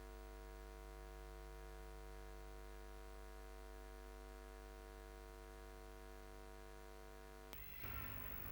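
Faint, steady hum with many even overtones, like an electrical mains hum. It cuts off suddenly about seven and a half seconds in and gives way to a rougher noise.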